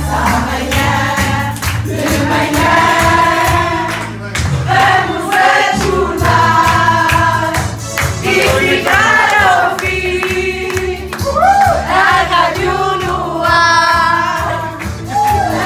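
Music: a song with several voices singing together over a steady bass beat, the held notes wavering in vibrato.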